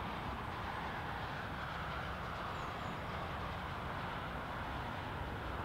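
Airbus A220-300 arriving, its Pratt & Whitney PW1500G geared turbofans making a steady rushing jet noise.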